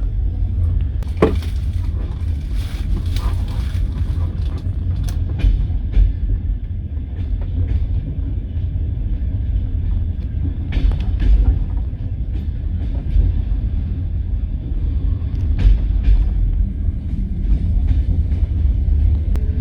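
Passenger train carriage running along the rails, heard from inside the carriage: a steady low rumble with occasional clicks and knocks of the wheels over rail joints.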